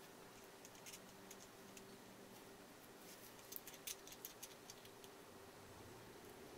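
Faint small clicks and ticks of broken Lladró porcelain pieces knocking together as they are dry-fitted by hand, bunched around the middle, over a faint steady low hum.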